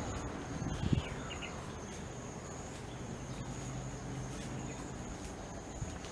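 Steady high-pitched insect trilling in the garden, with a single low thump about a second in.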